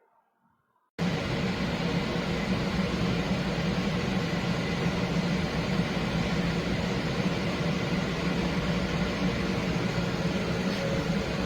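Electric fan running: a steady rush of air with a low hum. It starts abruptly about a second in.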